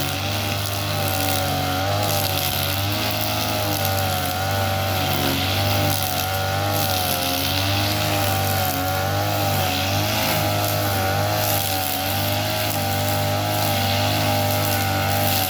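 Ogawa small petrol engine running steadily at speed, its pitch wavering gently up and down.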